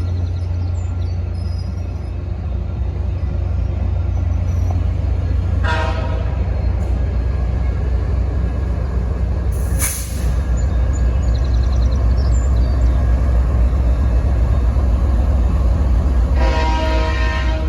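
Diesel locomotive air horn: a short blast about six seconds in and a longer one starting near the end, over the steady low rumble of the train.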